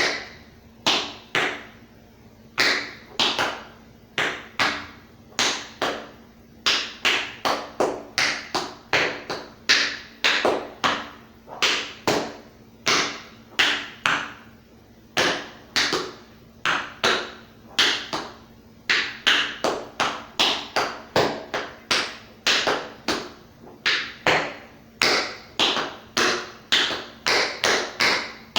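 Tap shoes striking a hard floor in a rhythmic tap-dance sequence: sharp metal taps in quick clusters of two to four, with short pauses between phrases, danced without music.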